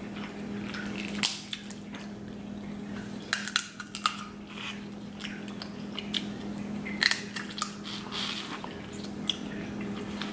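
Snow crab legs, slick with garlic-butter sauce, being cracked and pulled apart by hand, with wet sucking and chewing as the meat is eaten. Sharp shell cracks come about a second in, in a cluster between three and four seconds, and again around seven seconds in.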